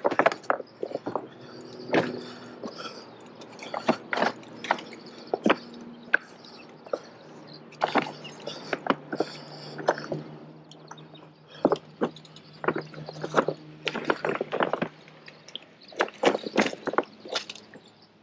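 Irregular knocks and clatter of a mountain bike being moved over loose river rocks, with stones shifting and crunching underfoot. A faint steady low hum sits under the knocks through the middle stretch.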